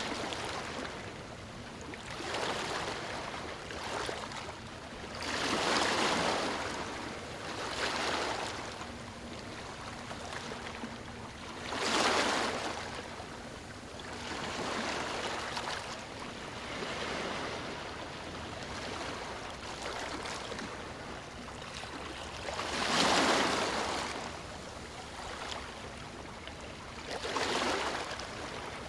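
Ocean waves breaking on a beach: a steady wash of surf with a wave surging up and fading away every few seconds, the strongest about six, twelve and twenty-three seconds in.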